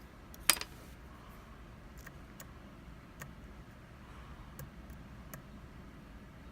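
Lock pick working the pins of an Abus E20 lock cylinder: one sharp click about half a second in, then a scattering of faint, irregular ticks.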